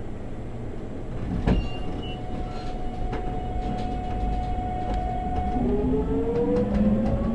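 373 series electric train's inverter and traction motors whining as it starts to pull away, several tones rising in pitch together from about five and a half seconds in. Before that a steady high tone sounds, after a sharp click about a second and a half in.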